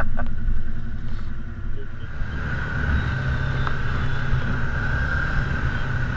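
Side-by-side engines idling. About two seconds in, a steady engine drone takes over as a Can-Am Commander side-by-side drives across a sand and gravel pit, heard from its onboard camera.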